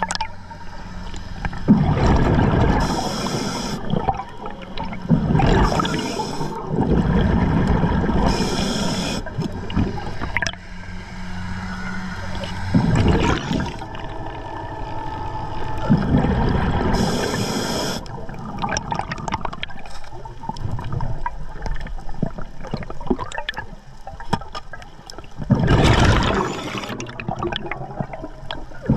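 Scuba diver breathing through an Atomic regulator underwater: several breaths, each a hissing inhale through the second stage followed by a gurgling rush of exhaled bubbles.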